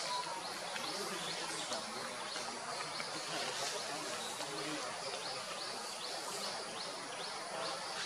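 Forest ambience: a steady hiss with many short, high chirps that fall in pitch, repeating irregularly about once or twice a second.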